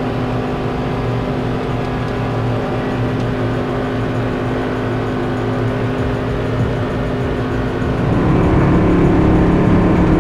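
Side-by-side UTV engine running steadily as it drives, with a step up in loudness about eight seconds in.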